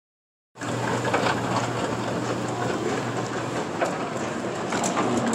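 Bowling alley din that cuts in suddenly about half a second in: a rolling rumble with scattered sharp clatters of balls and pins, over a steady low hum.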